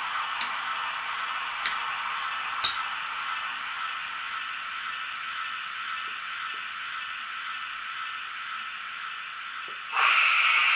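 Model steam locomotive's sound chip playing a steady steam hiss for a standing engine, with three sharp clicks in the first three seconds. About ten seconds in, a louder hiss comes in suddenly.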